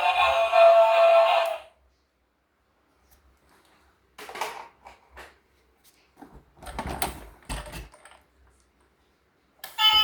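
Music with a clear melody that cuts off abruptly about a second and a half in. After a pause comes a scattering of quieter clicks and knocks from toys and packaging being handled. The music starts again just before the end.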